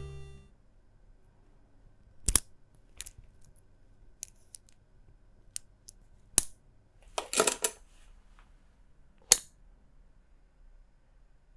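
Metal links of an Omega Constellation's two-tone steel-and-gold bracelet clicking and clinking as the bracelet is flexed and turned in the hands. There are single sharp clicks spaced a second or more apart, with a short rattling run of clinks about seven seconds in.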